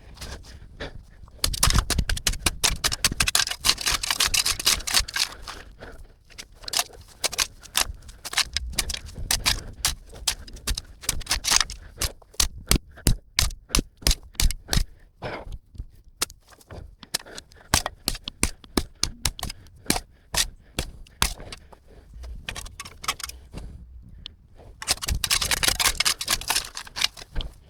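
Steel shovel digging into compacted dirt: many sharp chops of the blade striking the ground, in quick runs, with longer scraping spells near the start and near the end.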